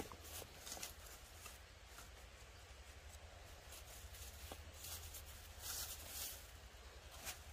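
Faint rustling and light scraping of a bamboo lattice frame being set down and arranged on dry leaf litter, with a handful of brief crackles and one longer rustle about six seconds in.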